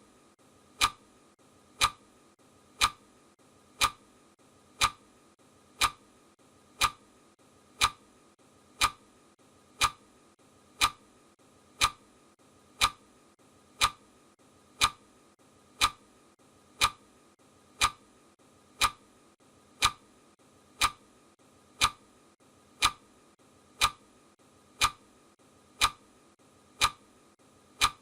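Clock ticking sound effect: one sharp tick a second, perfectly steady.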